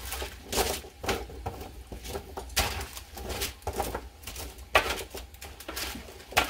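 Metal spatula scraping and tapping on a parchment-lined metal baking pan while tossing oiled sweet potato cubes: an irregular run of clicks and scrapes, the sharpest just before five seconds in.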